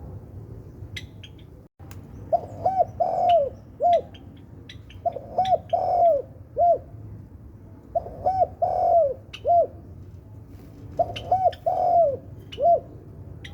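Spotted dove (Tekukur Sultan variety) cooing: four repeated phrases about three seconds apart, each of two short coos, a longer one and a short final coo. Short high ticks are scattered between the phrases.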